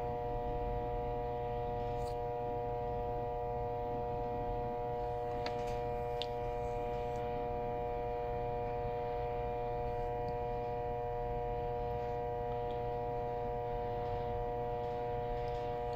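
Steady electrical hum made of several fixed tones over a low buzz, never changing in pitch or level.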